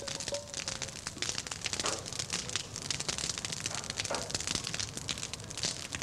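Open flames of burning torches crackling, a dense irregular patter of small pops.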